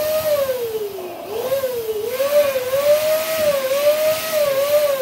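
Electric balloon pump blowing up a latex balloon: a steady motor whine with rushing air, its pitch wavering up and down. About a second in, the whine sags briefly and then picks up again.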